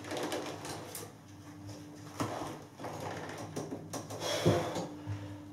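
Copper pipe and a copper push-fit tee being pushed and worked together by hand, with scattered knocks and clatters of metal against metal and the floor joists. No clear click of the fitting snapping home: it is not seating the way a push-fit joint should.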